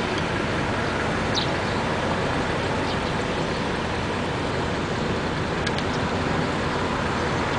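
Steady vehicle and road noise, an even unbroken rush with no distinct engine note, with a few faint short high chirps.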